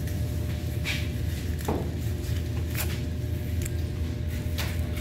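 A steady low machine hum. Over it come a few short scraping strokes of a knife skinning and slicing a gray mullet fillet on a plastic cutting board.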